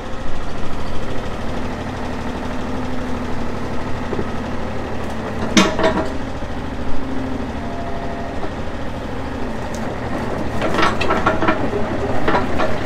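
Yanmar mini excavator's diesel engine running steadily. A sharp knock sounds a little past halfway, and a run of metallic clanks comes near the end.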